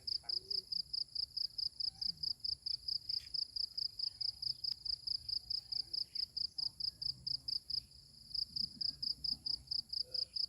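An insect, cricket-like, chirping in a fast even pulse of about five high-pitched chirps a second, breaking off briefly about eight seconds in before resuming.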